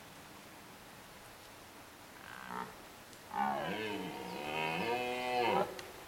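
Twelve-point red deer stag roaring in the rut: a short call about two seconds in, then one long roar of a little over two seconds that rises and falls in pitch.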